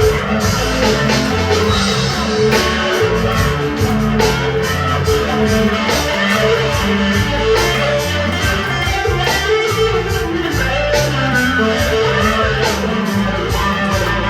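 Distorted electric guitar, a Squier Stratocaster through a Big Muff fuzz pedal into a Fender Champion 20 amp with delay and reverb, playing improvised rock lines over a backing with a steady beat.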